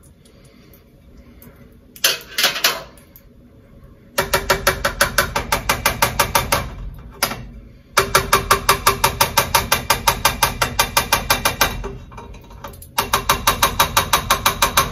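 Rapid, regular knocking of an upturned glass pasta-sauce jar, about five or six knocks a second, as it is shaken and knocked over a pan to get the thick sauce out. It comes in a short burst and then three longer runs with brief pauses between them.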